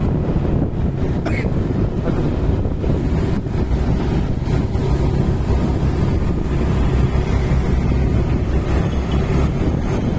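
Steady low rumble of a running vehicle with wind buffeting the microphone.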